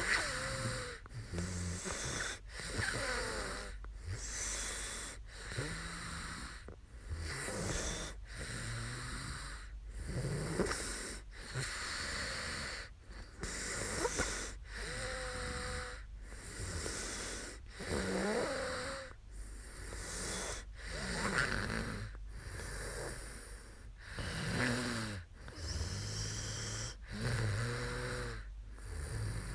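A sleeping woman snoring, repeated rasping, wheezy breaths that swell and fade every few seconds.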